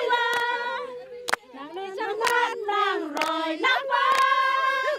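Voices singing long held notes, with a sharp clap-like beat about once a second.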